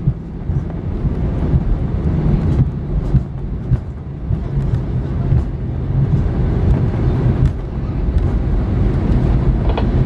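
Steady rumble inside an Airbus A320 cabin as the airliner rolls on the ground after landing, with a faint steady engine hum and scattered small clicks and rattles.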